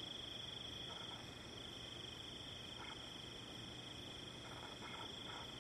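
Crickets chirring in a faint, steady, high-pitched chorus.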